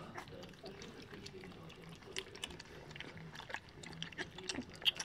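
A litter of three-week-old puppies lapping and smacking milky mush from a shared bowl: a dense, irregular run of small wet clicks and slurps that grows thicker and sharper after about two seconds.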